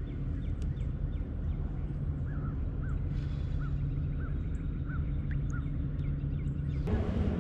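A bird calls a run of about seven short, evenly spaced notes over a steady low hum. Near the end a louder rushing noise comes in.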